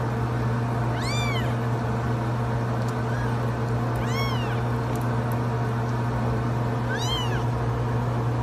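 Newborn sphynx kittens mewing: three short, high-pitched cries that rise and fall, about three seconds apart, over a steady low hum.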